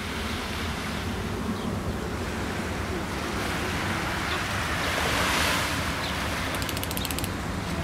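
Small waves washing onto a sandy shore with wind on the microphone, a steady rushing that swells briefly about five seconds in. A short burst of rapid, high ticking comes near the end.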